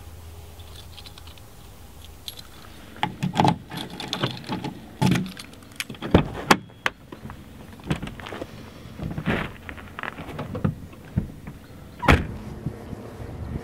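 Footsteps on gravel, then car keys jangling and a key clicking in a hatchback's door lock, followed by the door opening and shutting with several sharp clunks.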